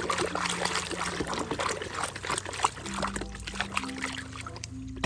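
Water pouring and trickling over a muddy toy as it is rinsed clean. The splashing thins out and quietens near the end.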